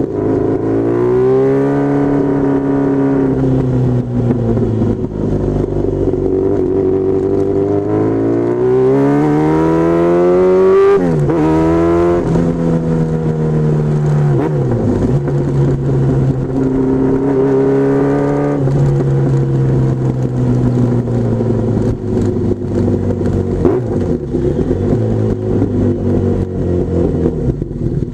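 Honda CBR1000F Hurricane's inline-four engine pulling under way, rising in pitch as it accelerates, dropping sharply at gear changes about 11 and 18 seconds in, and holding steady while cruising, over wind and road noise.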